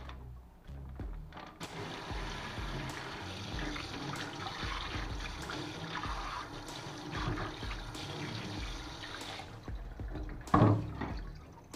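Kitchen mixer tap running into a stainless steel sink, the water splashing over pork skin rinsed by hand on a plate. The water comes on about two seconds in and stops near the end, and a single loud thump follows.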